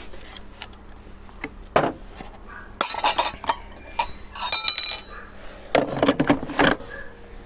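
Ninja blender parts being handled: scattered clicks and clinks of the jug and blade assembly knocking together, sharpest and ringing about three to five seconds in, then a couple of heavier clunks near the end as the jug is set back onto the motor base.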